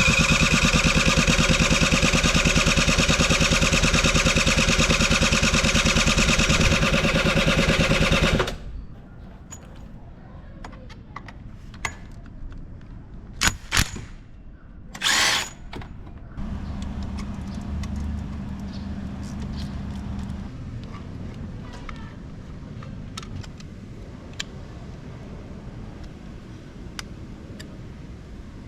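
A small engine running loudly and steadily, then cutting off suddenly about eight seconds in. Afterwards there are scattered clicks, two short loud noises and a low hum lasting a few seconds.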